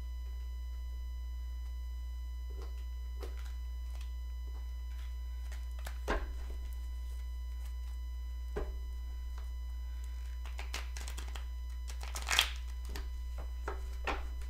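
Oracle or tarot cards being handled and shuffled: scattered soft snaps and flicks of card stock, a quick run of them just after ten seconds and the loudest about twelve seconds in. A steady low hum sits underneath throughout.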